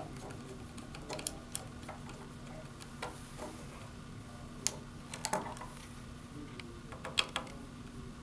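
Irregular light clicks and taps from wire leads being fitted into the small plastic terminal block of a DC motor drive control, a few in quick clusters. A faint steady hum sits underneath.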